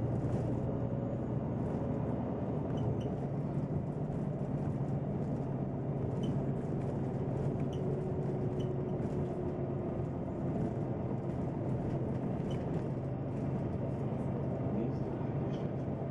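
Neoplan N 4416 Centroliner city bus driving, heard from inside the bus: a steady engine drone with light rattles and clicks from the interior.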